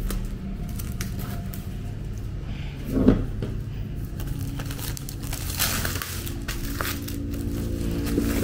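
Clear plastic shrink wrap being peeled and pulled off a cardboard box, crinkling with scattered sharp crackles and a louder crackle about three seconds in.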